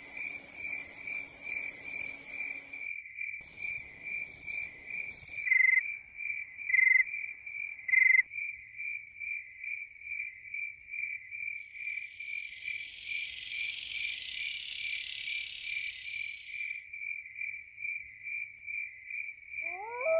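Crickets chirping in a steady, rapid pulsing trill. Bursts of high hiss come and go over it. Three short, louder chirps come about a second apart, a third of the way in, and a rising eerie tone starts just at the end.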